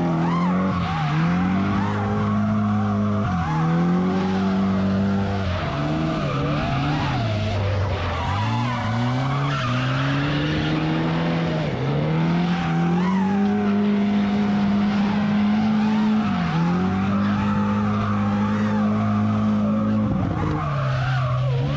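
Drift car's engine revving hard and held high through long slides, dropping briefly about six times as the throttle is lifted between drifts, with tires squealing throughout.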